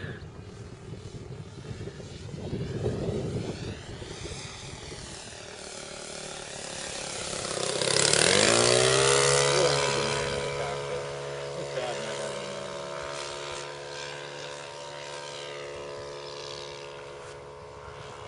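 Saito 180 four-stroke engine of a 1/5-scale Waco biplane flying past: it grows loud in a low pass about eight seconds in, its pitch dropping sharply as it goes by, then drones steadily as the plane flies off.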